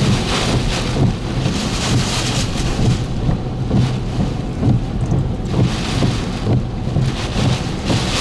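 Hurricane-force wind with driving rain, loud and rising and falling in gusts every second or two, buffeting the microphone with a constant low rumble.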